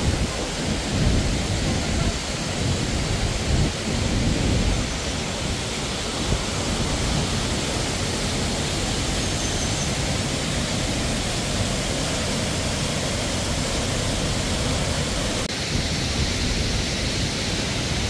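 Steady rushing roar of a waterfall pouring into a rock pool, with low rumbles in the first few seconds.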